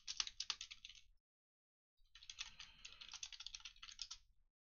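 Typing on a computer keyboard: a burst of rapid key clicks lasting about a second, a short pause, then a longer burst of about two and a half seconds.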